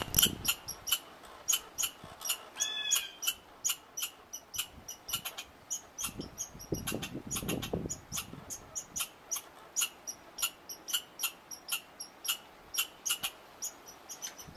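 American red squirrel calling with a long run of short, sharp chucks, about three or four a second. A single falling chirp cuts in briefly about three seconds in.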